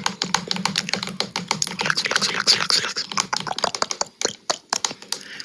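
Rapid, crisp close-up tapping and clicking, many small clicks a second, thinning out to a few separate clicks in the last second or so.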